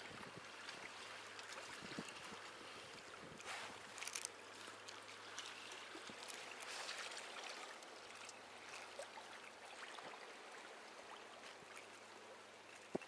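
Faint sea water lapping and sloshing in a harbour, with a few light knocks of rod handling, a small cluster of them about four seconds in.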